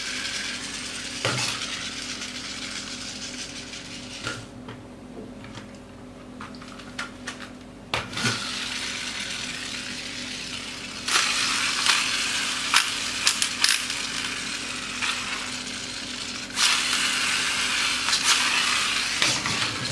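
Plastic toy dirt bikes being handled and pushed on a tabletop: scattered plastic clicks and knocks, then two longer stretches of rattling, whirring wheel noise in the second half.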